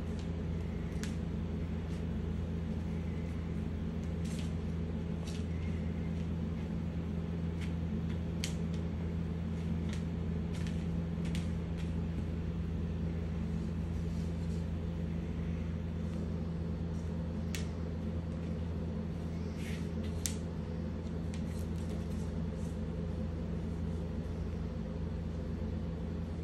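Steady low hum of indoor background noise, with scattered faint light clicks and taps.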